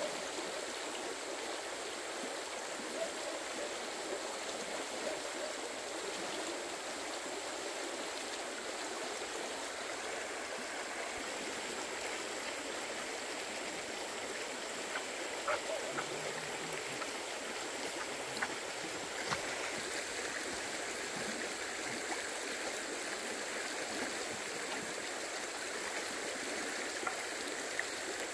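Steady rushing of flowing water, with a few faint clicks and knocks scattered through it.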